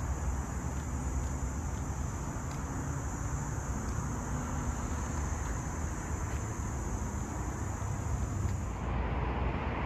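Insects shrilling in one steady, unbroken high tone, stopping about nine seconds in, over a low, steady rumble of distant road traffic.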